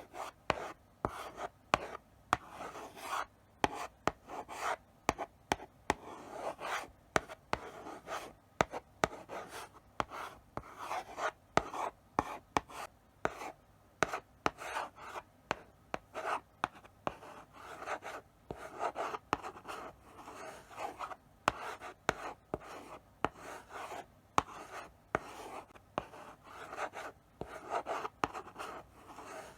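Chalk writing slowly on a blackboard: short scraping strokes one after another, with sharp taps as the chalk meets the board.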